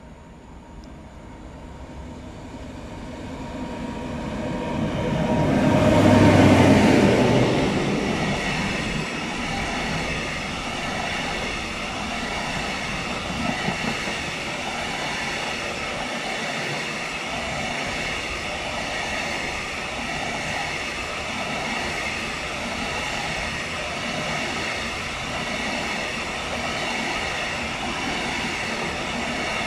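Diesel-hauled freight train of tank-container wagons approaching and passing close by. It grows louder to a peak about six seconds in as the locomotive goes past, then the wagons keep rolling by in a steady rumble and rattle of wheels on the rails.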